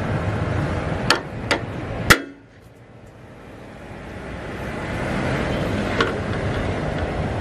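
Ball-peen hammer striking a steel bolt: three sharp, ringing metal strikes within about a second. One fainter knock follows a few seconds later, over steady wind noise.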